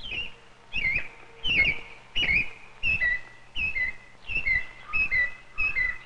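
American robin singing: short slurred whistled phrases, about nine of them, repeated roughly every 0.7 seconds. A faint steady low hum runs underneath.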